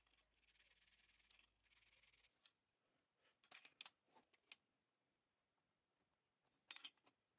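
Faint fine-grit sandpaper rubbing on a primed metal toy part, two short strokes in the first two seconds. Then a few light clicks and taps as small metal pieces are handled on a metal tray, a little cluster near the end.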